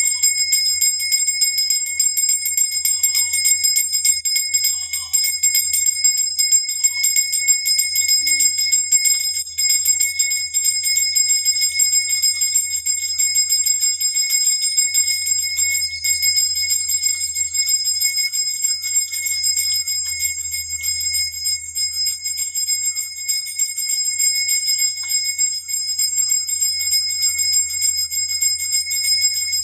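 Brass puja bell rung continuously and rapidly during the aarti, a steady high ringing with a fast, even flutter.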